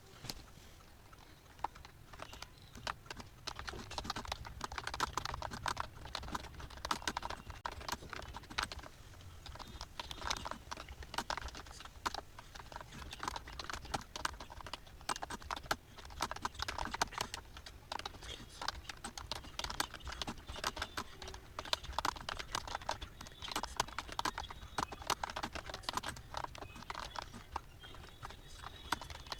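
Computer keyboard being typed on fast and without pause: a dense, continuous stream of key clicks starting about a second in.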